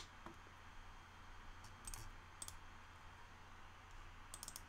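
Near silence, broken by a few faint, short clicks from a computer mouse and keyboard being worked, over a low steady room hum.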